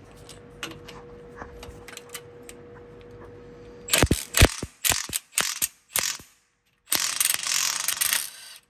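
Cordless impact wrench hammering on a double-nutted head stud of a Detroit Diesel 6-71 to back it out of the block. Several short bursts come about halfway through, then one longer continuous run of about a second and a half near the end.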